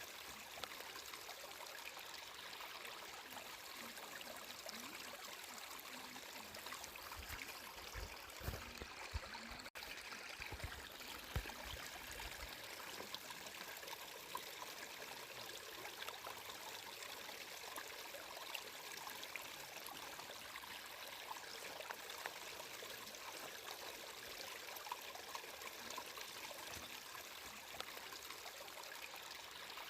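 Flowing water trickling and splashing in a steady stream of small splashes, with a few low rumbles about a quarter to a third of the way in. The sound cuts out for an instant about a third of the way through.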